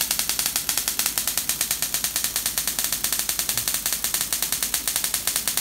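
High-voltage spark gaps and a 3000 V gas discharge tube firing continuously, a rapid, even train of snapping sparks at roughly a dozen a second, over a low mains hum.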